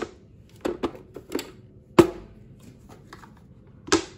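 Sharp plastic clicks and knocks from a food processor's clear bowl and lid as the lid is unlocked, lifted off and set down, with the motor stopped. The loudest knock comes about two seconds in and another just before the end.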